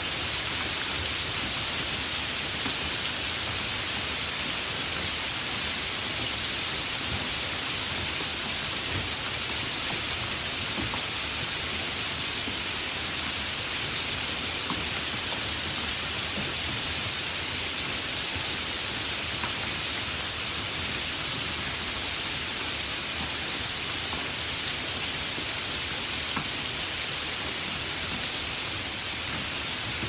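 Light rain falling steadily: a continuous even hiss with faint ticks of single drops here and there.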